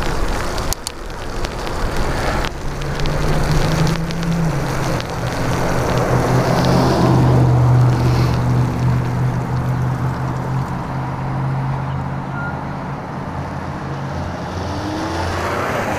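Tyres of a 1997 Giant Iguana mountain bike hissing on rain-soaked pavement, mixed with wind on the microphone. A steady low hum runs through the middle and gives way to a lower hum near the end.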